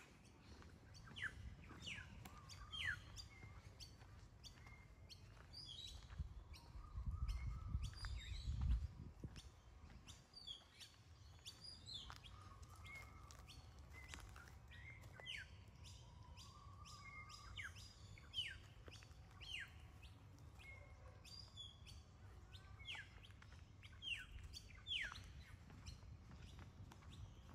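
Birds chirping: many short calls that drop in pitch, repeated throughout, over a low rumble that swells briefly about seven to nine seconds in.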